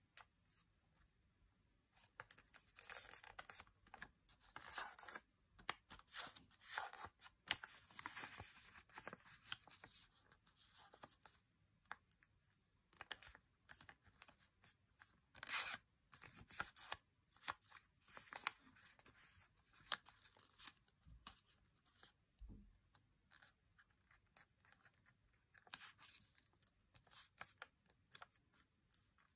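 Thin origami paper rustling and crinkling in the hands as it is folded and creased, in short irregular bursts with small crisp clicks.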